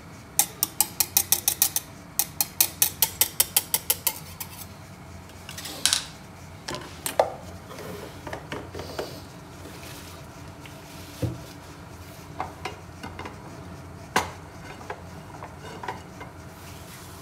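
Egg mixture being beaten with cutlery in a dish: quick, even metal clinks against the dish, about five a second for the first four seconds, then slower, scattered clinks and taps.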